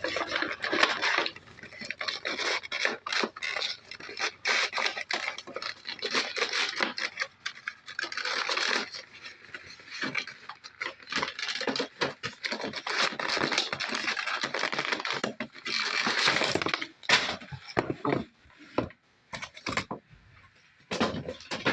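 Toy packaging being torn and pulled open by hand: irregular tearing, scraping and crackling of cardboard and plastic, with a lull near the end.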